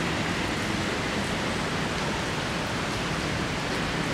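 Steady, even hiss of outdoor background noise at an empty stadium, with no distinct events.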